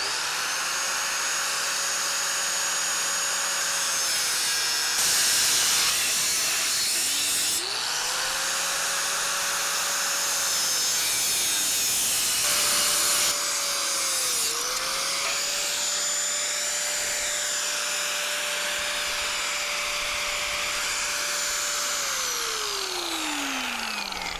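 A handheld power cutting tool running and cutting through the steel tubing of an IBC tote cage. The motor runs in three stretches, winding down and starting up again twice, and winds down near the end. A harsh cutting noise sits over the motor and grows louder in a couple of short spells.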